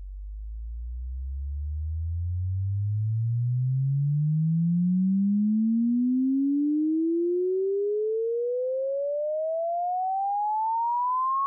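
A single pure electronic sine tone sweeping steadily upward in pitch, from a deep low hum to a high whistle. It grows louder over the first half and then holds level.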